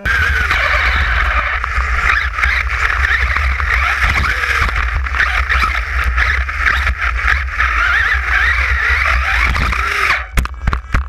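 Radio-controlled buggy driving at speed, its motor and drivetrain running steadily and loudly, heard from a camera mounted on the chassis. About ten seconds in the running drops away and a few sharp knocks follow as the car flips over.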